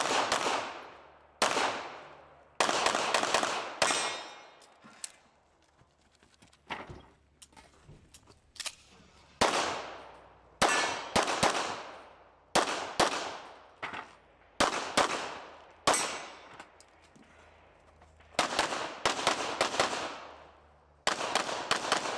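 CZ pistol firing many sharp, echoing shots in quick pairs and short strings, with pauses of a second or two between strings.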